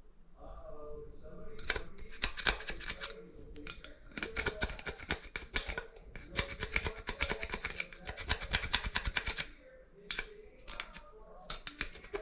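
Rapid scraping or rasping strokes, several a second, in two long runs with a brief pause about four seconds in.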